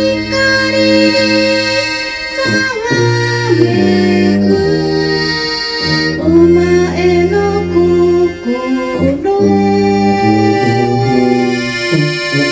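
Live small-band music led by accordion: held chords under a sustained melody line that slides between some of its notes.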